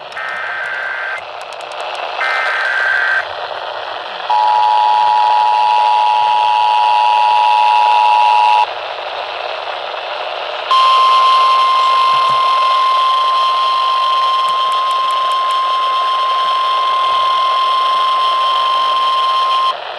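Emergency Alert System tones over a hissy broadcast: the last short bursts of the data header, then the two-tone attention signal for about four seconds. After a short pause, a single steady alert tone, typical of NOAA Weather Radio, holds for about nine seconds.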